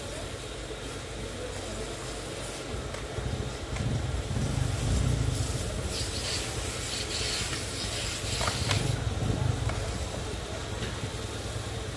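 A vehicle engine running with rushing noise, louder for several seconds in the middle.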